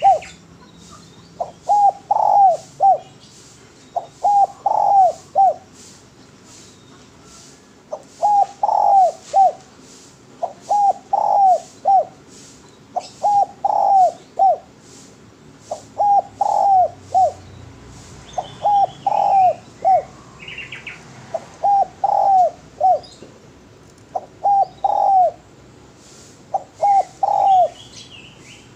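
Spotted dove (derkuku, tekukur) cooing in a steady series of phrases, each of three or four notes that fall in pitch, repeated about every two seconds, with a longer pause after the second phrase.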